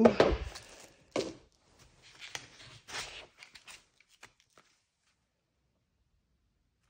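Handling noise: a knock at the start, a sharp click about a second in, then lighter rustles and ticks that die away after about four and a half seconds.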